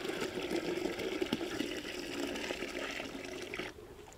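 Custard powder mixed in milk poured in a steady stream from a small steel vessel into a large metal pot of milk, splashing into the surface. The pour stops near the end.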